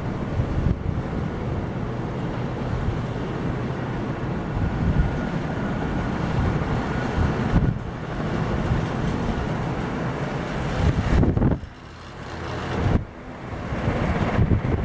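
Many ceiling fans running together: a steady rushing of moving air with wind buffeting the microphone. The noise drops for a moment about twelve seconds in and again just after.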